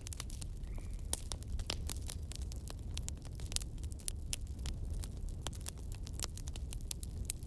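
Continuous crackle of many fine, irregular clicks over a steady low rumble.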